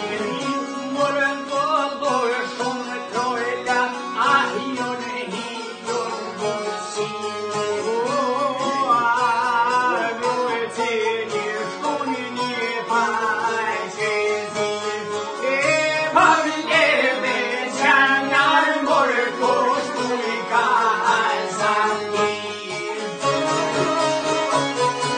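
Albanian folk song: a male voice singing with heavy vibrato over plucked long-necked lutes and an accordion.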